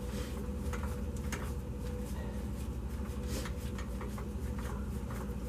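Wrench working a stubborn nut off an EGR pressure feedback sensor: faint, irregular metal clicks over a steady low hum.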